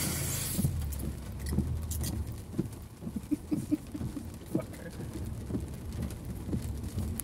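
Water pattering and ticking irregularly against the car's body and windshield, heard from inside the cabin over the low rumble of the engine and tyres, while driving through standing water on a flooded road. A hiss of spray dies away about half a second in.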